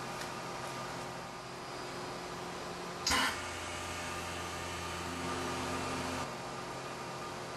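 XtraVac CM800 vacuum chamber packaging machine: the lid shuts with a sharp clack about three seconds in, then the vacuum pump runs with a steady low hum for about three seconds, getting a little louder near the end before cutting off suddenly. A steady machine hum sits underneath throughout.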